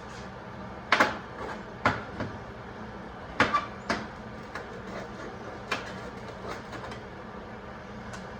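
Irregular sharp knocks and clinks of metal pieces being handled and set down on a workbench, about a dozen in all, the loudest about a second in and about three and a half seconds in, over a steady background hum.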